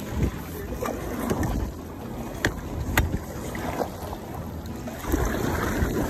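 Water splashing and lapping around a sailing kayak's hull as it moves through choppy river water, with wind buffeting the microphone and a few sharp clicks.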